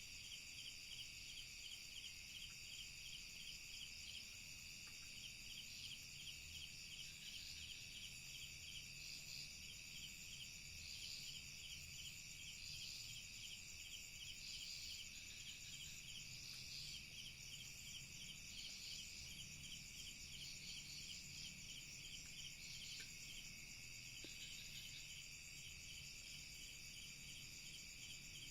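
Faint night-time insect chorus: several steady high-pitched buzzes layered with a fast pulsing trill. A louder chirping call repeats about every two seconds through the middle stretch.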